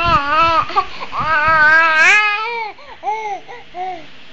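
Toddler laughing and babbling in a high voice: a quick run of sounds at the start, a long drawn-out call about a second in, then several short sing-song syllables.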